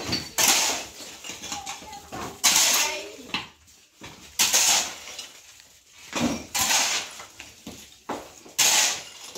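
A long-handled digging tool striking and raking into broken clay-brick rubble on a floor, five clattering strikes about two seconds apart.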